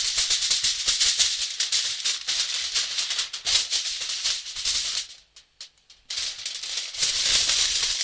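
A sheet of aluminium foil being moved and rustled by hand, a dense high-pitched crackle. It stops for about a second a little past the middle, then starts again.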